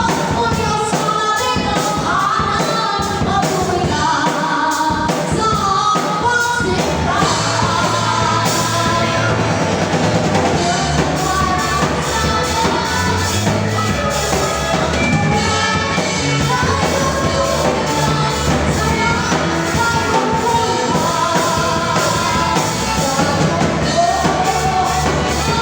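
Live band playing a worship song with drum kit and bass under voices singing the melody.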